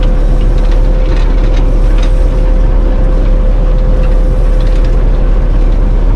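Combine harvester running steadily while harvesting wheat: a heavy low rumble with a steady whine on top.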